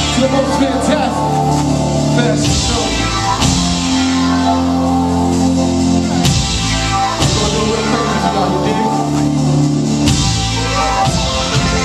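Live rock-pop band playing: electric guitars, keyboard and bass over a drum kit, with sustained chords and cymbal crashes every second or two.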